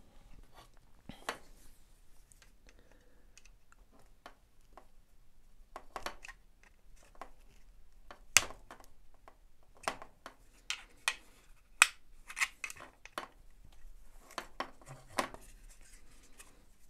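Hard plastic clicking and scraping as the snap latches on a Makita DX01 dust-extraction tube are pried apart with a flat screwdriver. It is an irregular run of sharp clicks, and the loudest come about eight and twelve seconds in.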